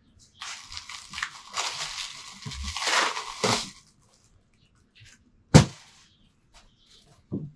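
Plastic packing wrap crinkling and rustling for about three seconds as it is pulled off a bicycle's fork, then a sharp knock and, near the end, a lighter one.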